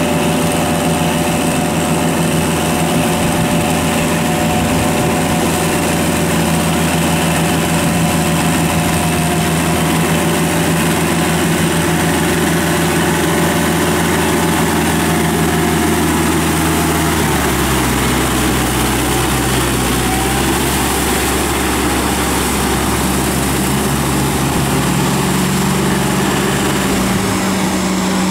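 Kubota tractor's diesel engine running steadily under load while it drives a rotary tiller through a flooded rice paddy, with a second tractor engine running behind it. The engine note shifts about two-thirds of the way through and again near the end.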